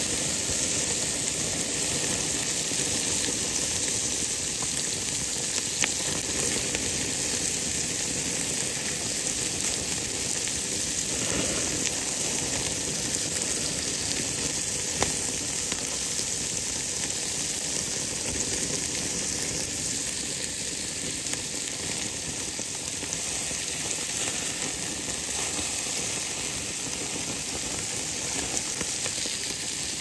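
Bacon and chops sizzling on a hot grill grate: a steady hiss with a few small pops.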